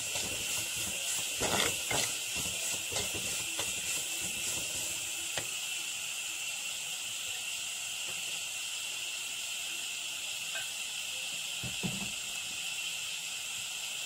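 Crushed coconut, onion and garlic frying in coconut oil in a clay pot: a steady sizzle, with a steel spoon scraping and knocking against the pot as it is stirred during the first five or six seconds, then mostly the sizzle alone.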